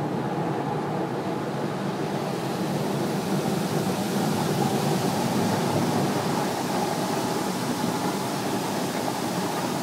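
Automatic car wash heard from inside the car: rotating brushes scrubbing over the glass and bodywork with water spraying on the windows, a steady rushing noise that turns hissier about two seconds in.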